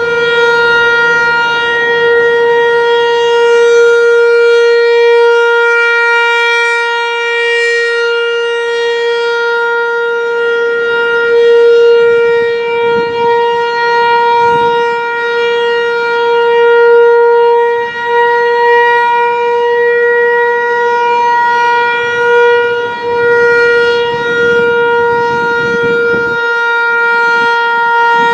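Federal Signal Equinox outdoor warning siren sounding a steady single-pitch tone for a test. Its loudness swells and fades every few seconds while the pitch holds.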